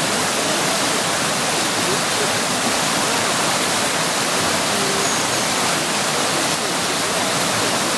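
Creek water running over rocks, a steady rushing sound.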